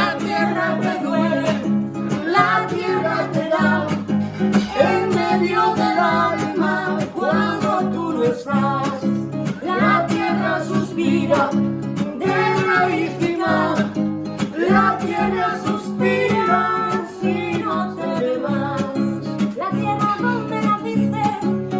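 A song: a voice singing over strummed and plucked acoustic guitar.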